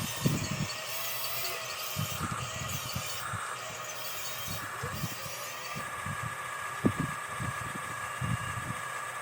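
Small electric motors of a radio-controlled construction model whirring, with irregular low clunks and knocks from its moving plastic and metal parts. The whine settles into a steadier tone about six seconds in.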